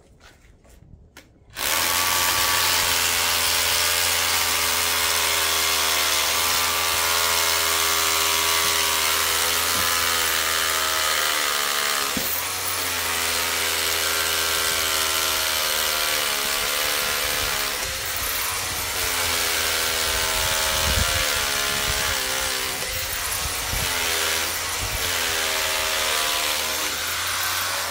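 Cordless hammer drill boring an anchor hole into concrete through a railing base plate. It starts about a second and a half in and runs without a break, its pitch wavering slightly as it bites.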